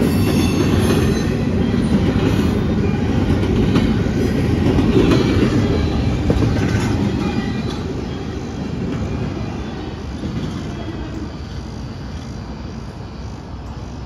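Double-stack intermodal freight train cars rolling past on the rails, wheels clattering with some high-pitched wheel squeal. The sound fades steadily after about halfway through as the end of the train passes and rolls away.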